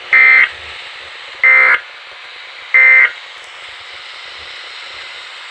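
Three short bursts of SAME digital data tones on a Weatheradio Canada broadcast, each about a third of a second long and about 1.3 s apart, with steady radio hiss between them. Their shortness fits the end-of-message code that closes an alert.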